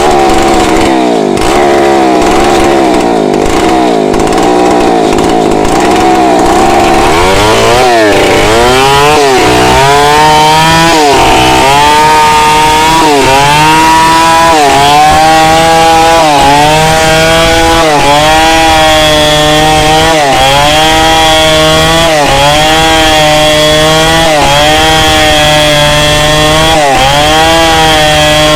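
Two-stroke chainsaw running at high revs while cutting lengthwise through a log; its pitch sags each time the chain bites under load and then recovers, about every second and a half.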